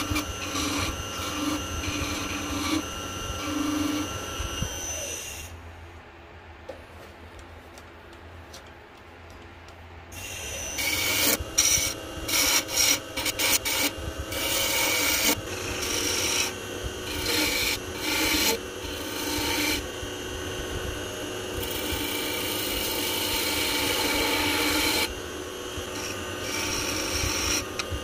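Ebony spindle turning on a wood lathe while a hand-held spindle gouge cuts it, making a steady scraping hiss. The cutting stops for about five seconds, leaving only a low hum, then resumes louder in many short strokes.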